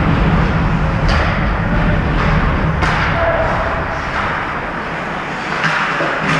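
Ice hockey play in a rink: several sharp knocks from sticks and puck, a second or two apart, over steady arena noise with a low hum.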